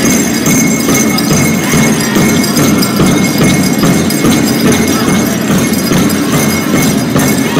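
Powwow drum group drumming and singing a grand entry song, with the jingling of bells and metal cones on the passing dancers' regalia.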